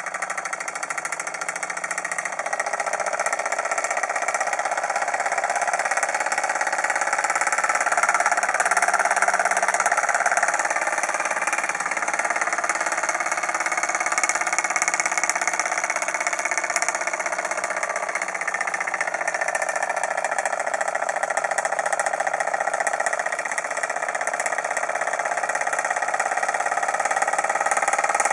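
Small model hot air engine running fast, its flywheel spinning and its piston linkage clattering rapidly, over the steady hiss of the gas torch flame heating its hot cylinder. The running grows louder over the first several seconds as the engine picks up speed, then holds steady.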